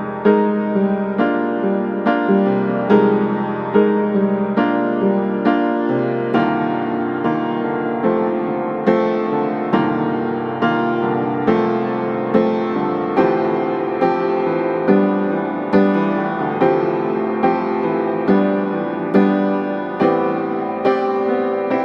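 Background music: a piano piece with chords struck on a steady slow beat over a held bass.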